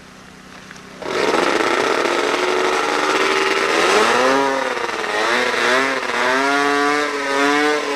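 Racing snowmobile two-stroke engines start loud about a second in and keep running, their pitch rising and falling repeatedly as the throttles are blipped.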